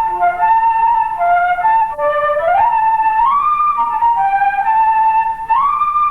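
A single flute-like wind instrument playing a slow melody of held notes, with a few notes sliding smoothly up in pitch.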